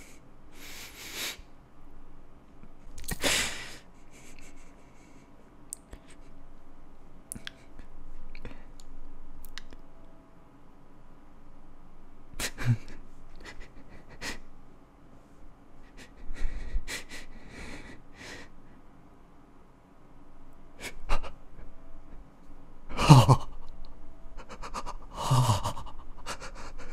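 A man breathing, sniffing and making short wordless vocal noises close to the microphone, in scattered bursts with small clicks between; the loudest two come near the end.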